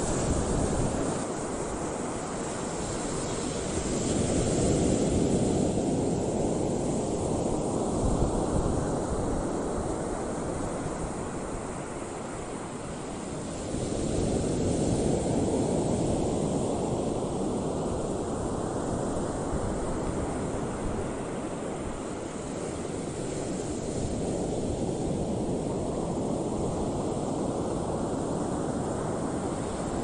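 Steady rushing noise of wind and choppy open water, swelling and easing roughly every ten seconds.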